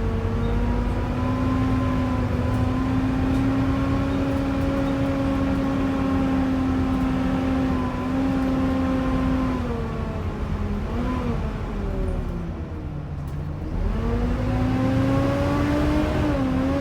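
Volvo B7TL double-decker bus heard from on board, running with a loud, hoover-like whine. The whine holds steady, sinks in pitch as the bus slows about ten seconds in, and climbs again as it pulls away a few seconds later.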